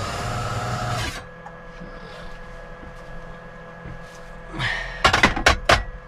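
An electric appliance whirring, which cuts off suddenly about a second in and leaves a faint steady hum. Near the end comes a quick handful of sharp knocks and clicks as things are handled on the worktop.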